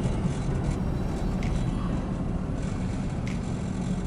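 Steady road and engine rumble inside a moving truck's cabin, with two faint ticks.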